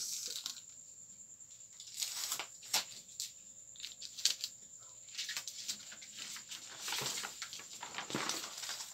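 Large manila-paper chart being handled and unrolled: irregular paper rustling and crinkling, in several bursts.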